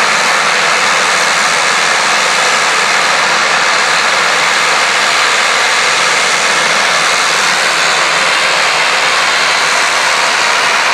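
Small twin-engine turboprop airliner's engines running steadily as it turns on the apron, a loud even hiss.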